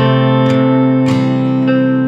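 Background music led by guitar: plucked notes, each struck about every half second, ringing over sustained chords.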